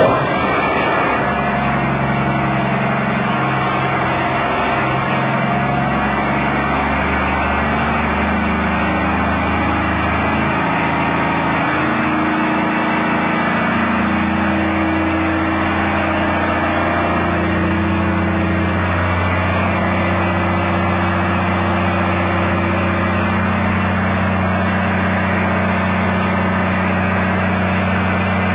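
Diesel engine running steadily, a continuous even engine note with no change in speed.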